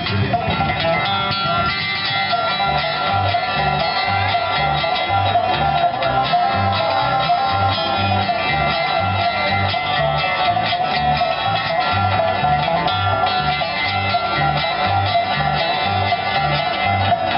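Bluegrass band playing an instrumental passage: banjo and guitar picking over a bass that alternates between two low notes about twice a second.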